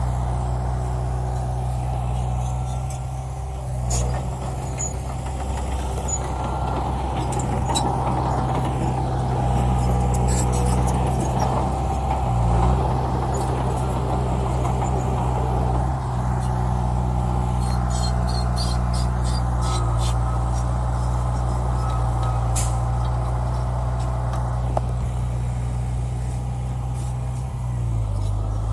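Diesel engine of heavy earthmoving machinery running steadily at a constant low pitch, with scattered sharp clicks and clanks over it.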